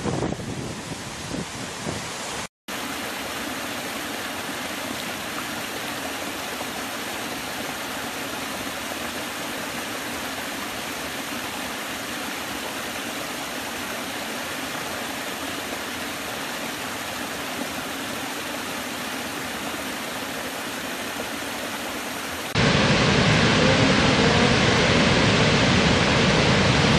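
Rushing water in three stretches. First a wide river pours over a waterfall's edge, and after a brief dropout a small forest stream cascades over mossy rock steps with a steady hiss. About 22 seconds in, a huge waterfall takes over, louder and deeper.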